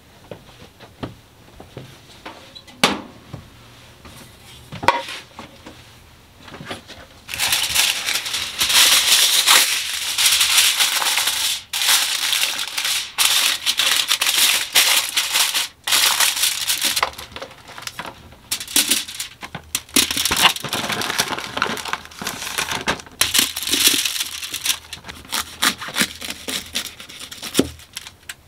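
Aluminium foil crinkling and crumpling in loud, irregular bursts from about a quarter of the way in, as a sheet is pulled out and pressed over a baking tray. A few light knocks come before it.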